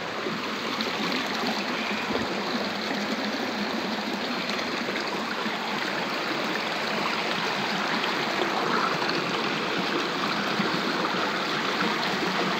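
A rocky stream's water rushing steadily.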